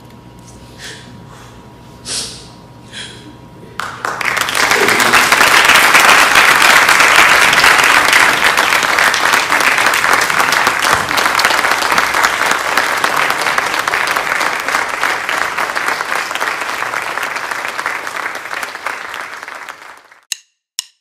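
Audience applauding, starting suddenly about four seconds in and staying loud and dense, then cutting off near the end.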